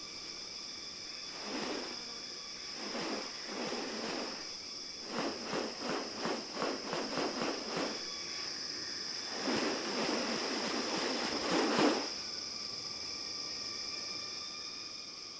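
Steady high-pitched drone of rainforest insects, with a series of harsh rasping bursts over it: scattered at first, then about four a second, and loudest in a dense run near the end before stopping suddenly.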